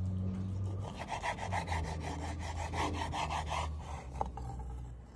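A dull kitchen knife sawing back and forth across raw chicken and scraping the bamboo cutting board, in quick rasping strokes about five a second; the blade is not sharp and fails to cut cleanly. A steady low hum runs underneath.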